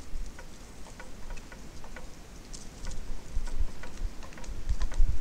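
Irregular light ticking and tapping, a few clicks a second, typical of small birds pecking seed on a feeder. Under it runs a low rumble of wind buffeting the microphone, swelling and loudest near the end.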